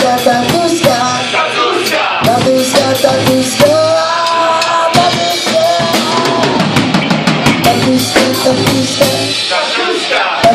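Live rock band playing: a drum kit hitting steadily under electric guitars and a sung vocal line.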